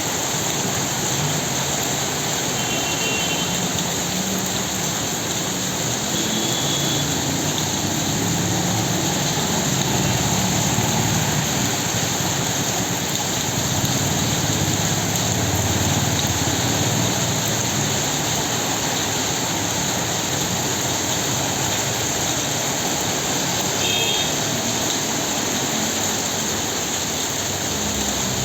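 Steady rain falling, with motor traffic on a wet road beneath it; a vehicle's low rumble swells and fades about midway. A few short high beeps come through at intervals.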